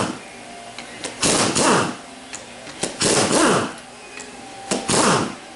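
Hand-held power ratchet spinning out the bolts of a Turbo 400 transmission pump body. It comes as three short whirring runs of about half a second, each falling in pitch, one every second and a half to two seconds.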